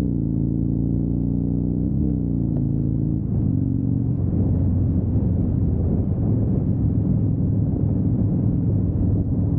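Harley-Davidson Dyna Fat Bob's air-cooled V-twin under way. Its note drops at the start as if on an upshift, rises briefly about two seconds in and falls again, then turns into a louder, rougher rumble from about three seconds in.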